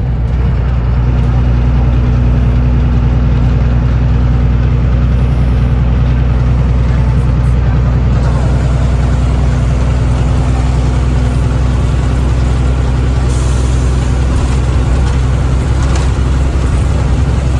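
Truck engine droning steadily while driving at highway speed, with road noise, heard from inside the cab.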